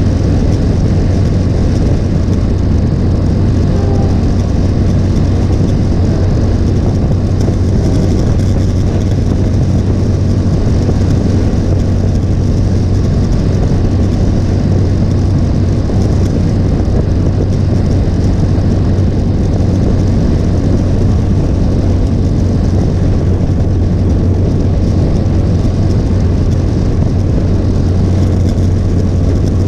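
Motorcycle engine running at a steady highway cruise: a constant low drone, with an even rush of road and air noise over it.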